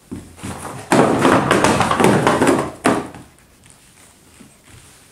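A stack of large cardboard building blocks toppling onto a wooden floor: a dense run of thuds and clatter for about two seconds, with one last knock just before three seconds in.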